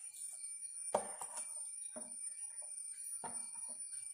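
Hand mixing grated cucumber into batter in a steel pot, making soft wet squelches and rustles about once a second.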